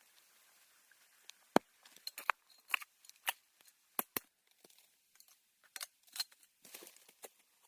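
Hand work with dry sticks and leaves: scattered sharp snaps and knocks at irregular intervals, with a short rustling crunch near the end.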